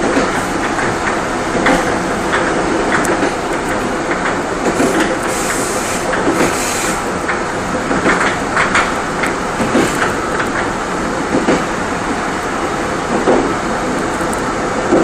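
Korail Mugunghwa-ho passenger train running, heard from inside its last coach: a steady rumble of wheels on rail with irregular clicks and knocks.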